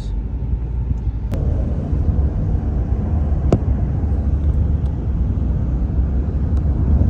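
Steady low rumble of a moving car heard from inside the cabin: road and engine noise, with a sharp click about a second in and another about three and a half seconds in.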